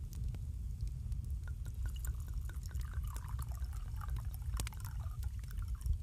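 Soapy dishwater sloshing and trickling from about a second and a half in until near the end, over a fireplace's steady low rumble with scattered crackles.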